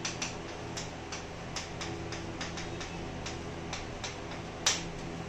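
Chalk clicking and tapping against a chalkboard while an equation is written: a run of sharp, irregularly spaced clicks, a few a second, with one louder tap near the end.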